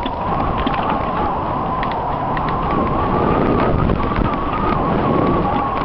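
Mountain bike being ridden on a dirt trail, with wind rushing over the microphone and scattered rattles and clicks over bumps. A steady high whine wavers slightly in pitch all the way through.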